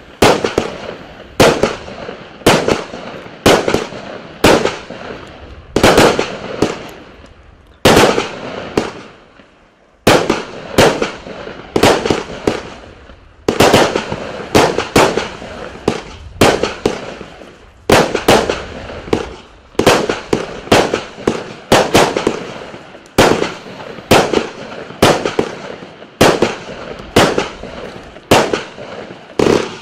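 FIREevent Parot compound fireworks battery firing shot after shot, each a sharp bang that trails off, about one to two a second. There is a short lull about a third of the way in, then the firing resumes.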